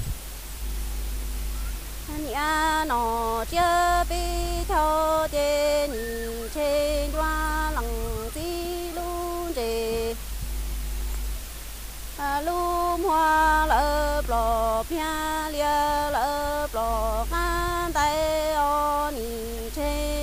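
A woman singing Hmong kwv txhiaj unaccompanied: long held notes in stepped phrases that drop in pitch at their ends, with a pause of about two seconds midway. A low steady rumble runs underneath.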